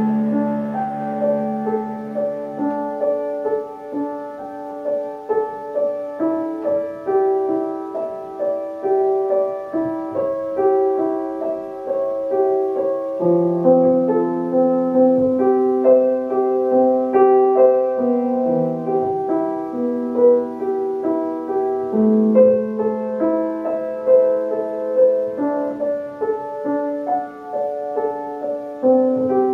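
Cello and piano playing a classical cello sonata together, the cello holding long low notes beneath the piano.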